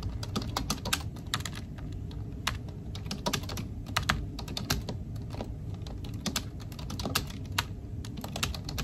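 Typing on a computer keyboard: many quick, irregular keystrokes over a low background hum.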